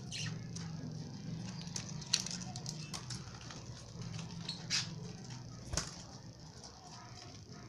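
Baby lovebirds moving about, with a few sharp taps and scuffles and faint short chirps over a steady low hum.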